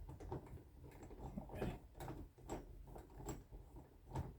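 Faint, irregular clicks and scrapes of interior doorknob hardware being worked loose by hand, metal parts ticking and rubbing.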